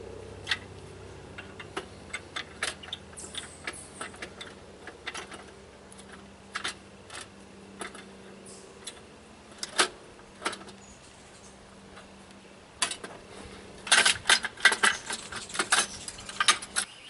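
Scattered metallic clicks and clinks of a chrome exhaust pipe, nuts and hand tools knocking together as the pipe is fitted to a motorcycle's exhaust port studs, with a quick run of clinks near the end.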